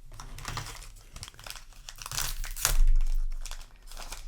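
Foil booster pack wrapper crinkling as it is handled, with a louder burst of crackling about two to three seconds in.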